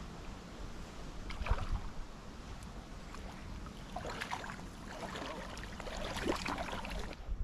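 River water sloshing and splashing around a wading angler's legs, with scattered splashes about a second and a half in and again from about four to six and a half seconds.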